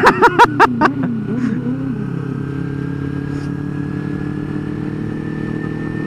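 Motorcycle engine running at steady revs while riding, heard through a microphone inside the rider's helmet, its pitch creeping up slightly. A few loud spoken syllables come in the first second.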